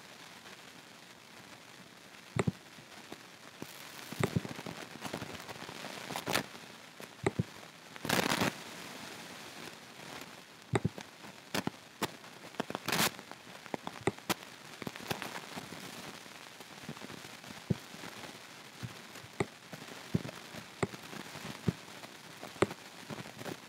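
Irregular clicks and taps of a computer mouse and keyboard, some sharp and loud, spaced unevenly, with a short rustling burst about eight seconds in.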